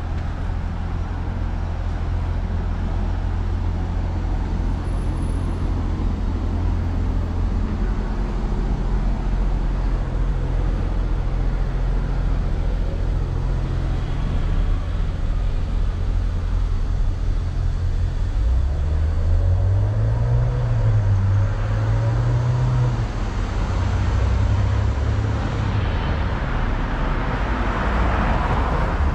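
Street traffic: a steady low rumble with car engines and tyres. An engine note rises and falls about two-thirds of the way through, and a vehicle swells past near the end.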